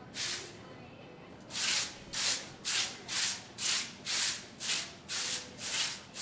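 A broom sweeping straw across a paved stable floor in quick, regular strokes. One stroke comes at the start, then about two strokes a second from about a second and a half in.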